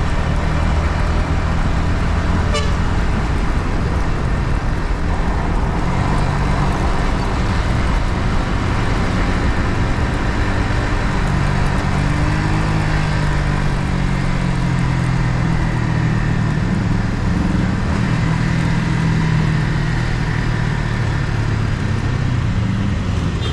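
Yamaha MT-15's single-cylinder 155 cc engine running through its stock exhaust while riding, its note rising and falling with throttle and gear changes, over wind and road noise.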